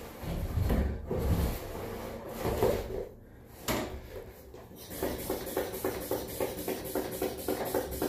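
Knocks, bumps and rubbing from hands and a tool working at the bottom of a metal-framed glass door. About five seconds in, an even pulsing of about four beats a second begins and carries on.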